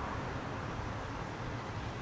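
Street traffic noise: a steady low rumble, with the tyre noise of a passing car fading away.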